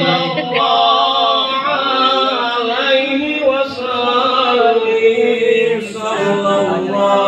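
Men chanting an Islamic devotional text in unison, a sustained melodic chant sung over a microphone from a book.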